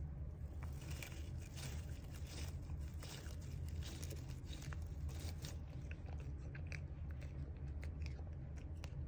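A tabby cat biting and chewing dried baby's breath stems: a quick run of dry crunches and clicks over a steady low hum.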